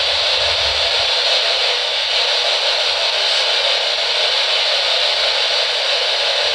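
Steady loud hiss of static, even and unbroken, with no distinct events.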